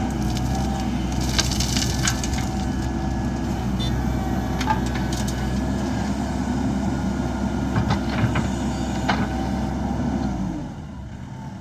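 Diesel engine of a JCB backhoe loader running steadily under work, with a few sharp knocks and clatters over it. The sound drops much quieter about ten and a half seconds in.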